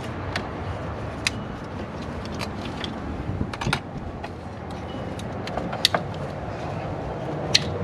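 Scattered sharp clicks and taps of plastic covers and hand tools being worked at a car battery's fuse box, over a steady background hum. The loudest click comes near the end.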